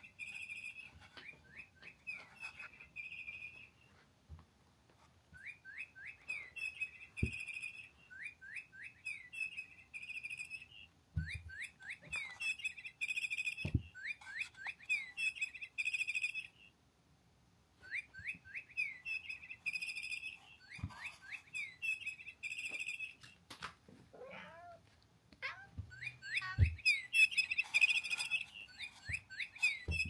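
Electronic chirping bird cat toy playing its recorded birdsong: bursts of quick, high, repeated chirps with short pauses between runs. A few soft thumps from the toy being batted, and a short cat meow about four-fifths of the way through.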